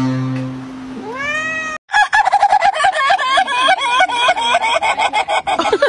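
Synthesizer notes fade out under a single rising cat meow. Then, after a cut, a chicken clucks loudly in a rapid, unbroken run of short calls for nearly five seconds.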